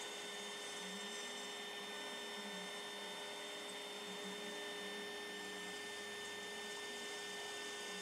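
Faint, steady hum of a CNC router spindle with a small ball nose bit carving hard maple: a constant whine over a low hiss.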